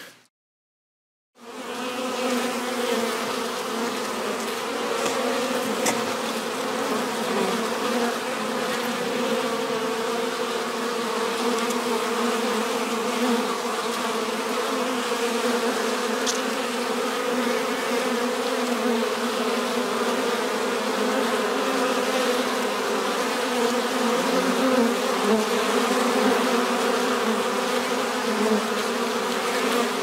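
Honeybees buzzing at a hive entrance: a steady hum that starts after a brief silence about a second and a half in.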